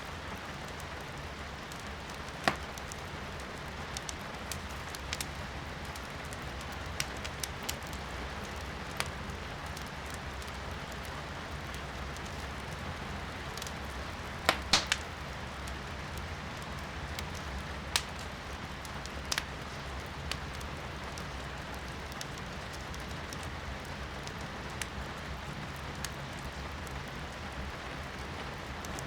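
Firewood burning in a fireplace, crackling with scattered sharp pops, the loudest a quick cluster about halfway through, over the steady hiss of rain heard from inside the room.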